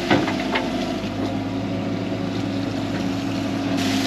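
Hydraulic excavator's diesel engine running steadily, with a few light clanks in the first half second as the bucket dumps its load.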